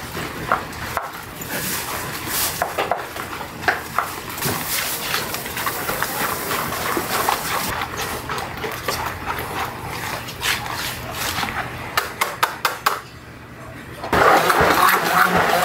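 Wire whisk stirring wet frying batter in a plastic bowl: irregular clicking and slapping of the wires against the bowl and through the batter, with a run of quick clicks near the end. After a brief lull, a hand-held immersion blender's motor starts, louder and steady.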